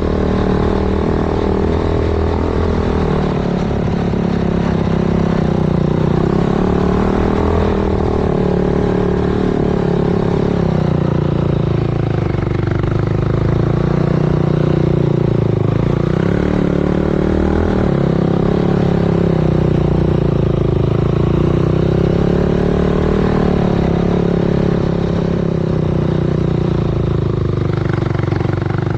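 Yamaha YFZ 450 quad's single-cylinder four-stroke engine, bored out to 501cc and fitted with a sport exhaust, running continuously under throttle, its engine speed rising and falling gently again and again.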